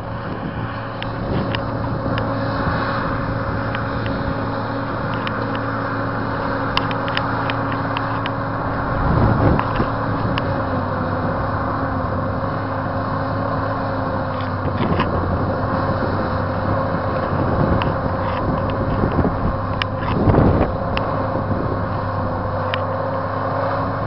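Crawler bulldozer's diesel engine running steadily as it works, with many short sharp clanks from its tracks. Twice, wind buffets the microphone in a low rumble.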